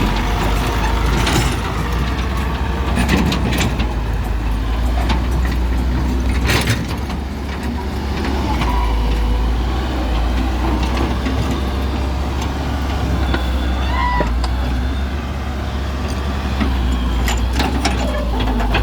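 Backhoe loader's diesel engine running steadily, with sharp clanks now and then.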